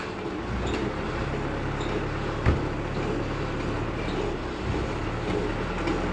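Steady low mechanical hum from a running machine, with one sharp knock about two and a half seconds in.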